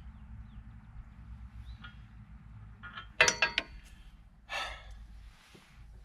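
A quick cluster of sharp, ringing metal clinks about halfway through, from wheel hardware handled by hand as a tractor's front wheel is fitted back onto its hub, followed a second later by a short scrape.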